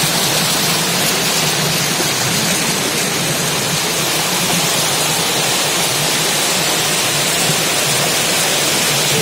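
Stream water rushing and splashing over rock ledges in small cascades, a steady loud rush close to the microphone.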